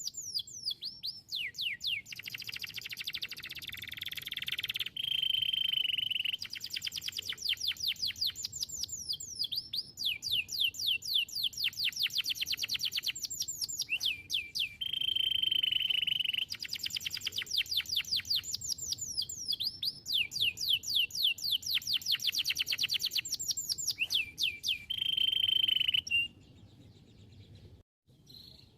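Domestic canary singing a long song: fast trills of rapidly repeated sweeping notes, each run of trills closing on a held high note, three times over. The song breaks off a couple of seconds before the end.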